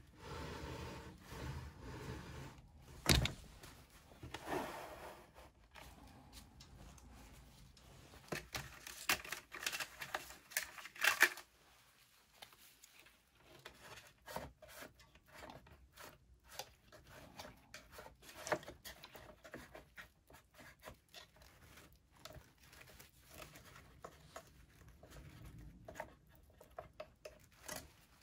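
Plastic spoon scooping and scraping beef in barbecue sauce out of an open metal can and spreading it on tortillas in a plastic food tray: scattered scrapes, taps and clicks. One sharp click about three seconds in is the loudest sound.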